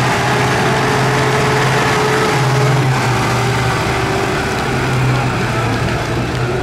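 Zetor Forterra 11441 tractor's diesel engine running steadily and loud under load as the tractor climbs a steep dirt slope.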